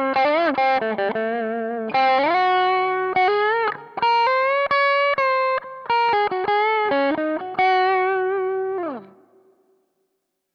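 Electric guitar played through a Zoom G11 multi-effects patch, with a Fender 2x12 cabinet model and hall reverb. It plays a singing single-note lead line of sustained notes with string bends and vibrato. The last note rings out and fades about nine seconds in.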